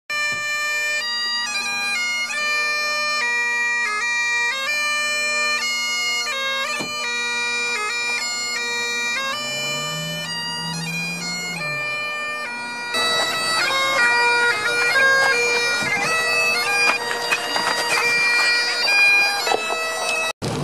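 Great Highland bagpipes played solo: steady drones held under a chanter melody that steps from note to note. About two-thirds of the way through the playing gets louder.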